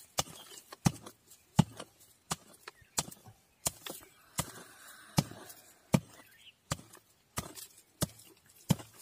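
A bladed hand tool chopping into dry soil again and again, with sharp strikes coming evenly about every three-quarters of a second, as the ground is dug loose by hand.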